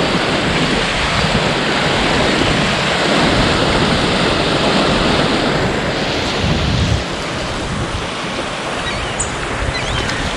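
Steady rush of water pouring through a dam and churning in the current below it, with wind buffeting the microphone in low gusts, the strongest about two-thirds of the way through.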